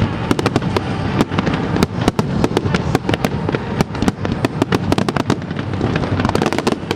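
Fireworks show: a dense, continuous barrage of crackling and banging aerial shell bursts, many reports every second over a rumbling background.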